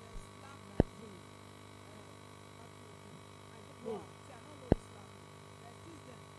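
Steady electrical hum with a buzzy edge, broken by two sharp clicks, one about a second in and one near the end.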